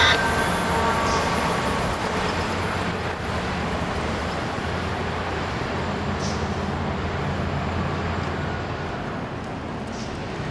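Diesel locomotive and bi-level passenger train pulling away: a steady engine rumble and rail noise that slowly fade.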